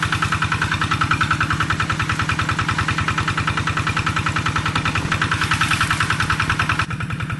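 An engine running steadily at idle, with an even pulse of about ten beats a second; it becomes a little quieter near the end.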